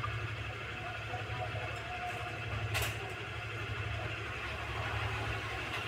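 Steady low background hum, with one sharp click near the middle as the mixer-grinder jar's blade and nut are handled by hand.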